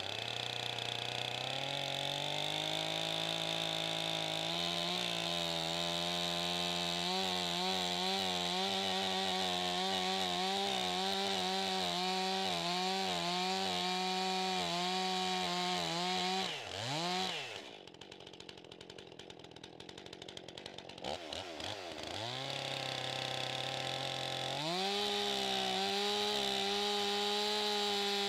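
Stihl two-stroke chainsaw revving up and cutting into the end of a timber log, its engine pitch wavering under the load of the cut. About 17 seconds in it drops to idle for a few seconds, then revs back up and cuts steadily again near the end.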